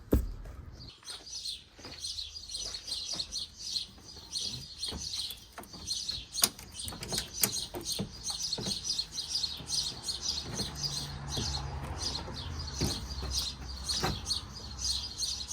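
Small birds chirping continuously, with scattered sharp clicks and knocks of metal being handled.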